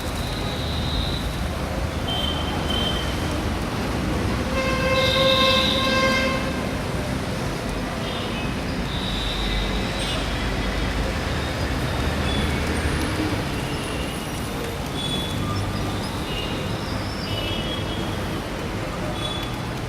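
Steady road traffic noise at a busy junction, with a vehicle horn held for about a second and a half around five seconds in, and brief high-pitched tones now and then.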